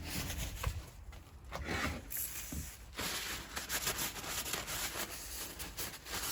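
Handling noises at the workbench: irregular rustling and scraping with small knocks, densest through the middle, as the packing string and the next valve plug are picked up.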